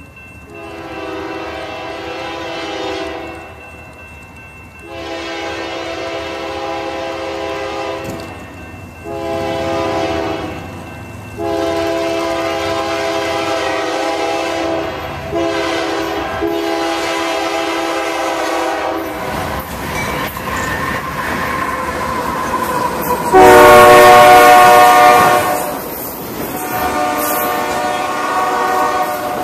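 Union Pacific freight locomotive's air horn sounding the grade-crossing signal of long, long, short, long, the last blast held for several seconds as the train approaches. The train's rumble then builds, and the horn blows again, loudest as the locomotive passes. The autorack cars follow with wheels clattering on the rails.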